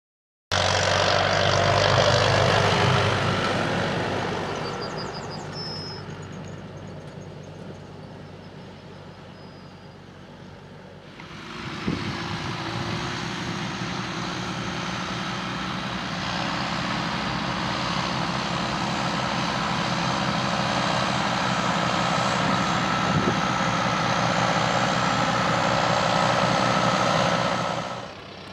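John Deere tractor's diesel engine running under load while it pulls a Lely Welger round baler over a hay windrow, with the baler's machinery working. About eleven seconds in, the sound changes suddenly to a steadier engine sound.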